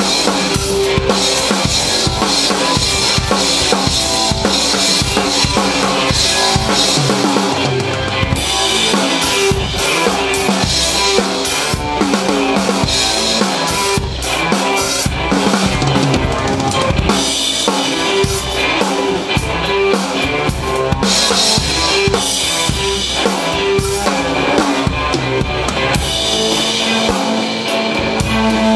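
Acoustic drum kit played in a steady, busy beat of kick drum, snare and cymbals, with an electric guitar playing along.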